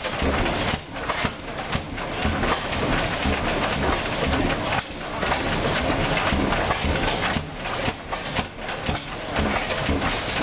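Large antique stationary gas engine running, a continuous coarse noise with a few brief dips.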